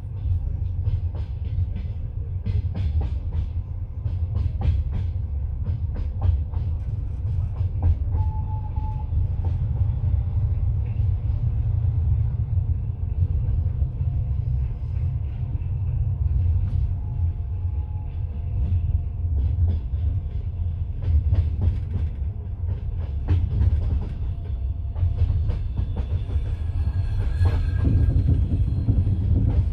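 Passenger train wheels clacking over rail joints above a steady low rumble, heard from inside the carriage.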